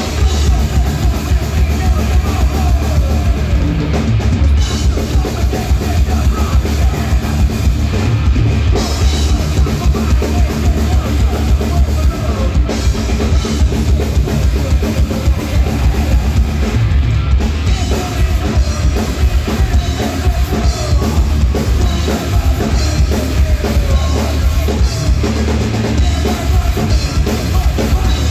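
Thrash metal band playing live: distorted electric guitars over a drum kit with heavy kick drums and cymbals, loud and dense in the low end.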